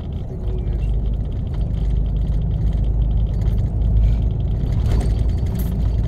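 Heavy truck driving at a steady speed, heard from inside the cab: a steady low engine and road rumble.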